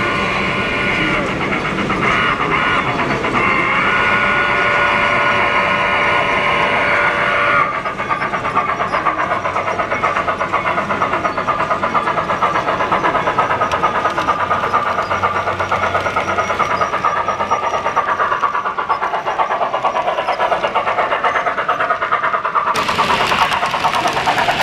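HO-scale model train with a sound decoder: a few long whistle blasts, then a steady rhythmic running beat as the train approaches. Near the end comes a loud rush as the passenger cars pass close by.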